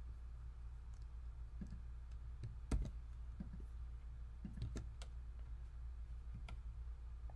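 Irregular light clicks of typing on a computer keyboard, about a dozen, with one sharper click about three seconds in and a quick cluster a little before five seconds, over a low steady hum.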